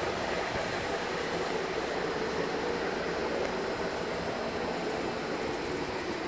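Glass passenger lift running as the cabin rises, a steady mechanical hum and rumble with no break.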